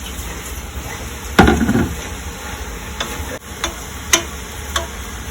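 Chopped spinach going into a pot of simmering sauce and being stirred: a loud dull knock about a second and a half in, then four light clinks of the utensil on the pot, over a steady low sizzle.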